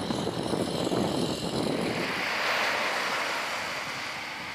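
Amphibious assault vehicles' engines droning as they swim, with water churning around their hulls. About halfway through, this gives way to a hiss of surf washing onto a beach, which fades toward the end.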